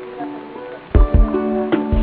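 Background music with plucked guitar-like notes; about a second in it turns louder, with a steady low beat under the plucked notes.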